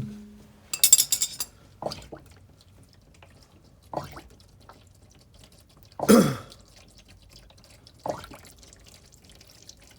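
Hot engine oil draining from the open drain hole of a Corvette's oil pan into a drain pan, burping as air gulps back into the pan: a glug every second or two, the loudest about six seconds in.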